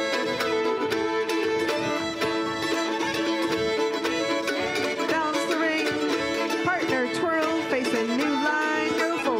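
Live folk string band playing a contra dance tune, fiddles leading with sliding, bending notes over guitar accompaniment and a steady beat.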